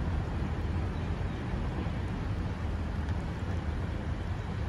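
Freight train of empty flatcars rolling past: a steady low rumble of wheels on rail, with wind on the microphone.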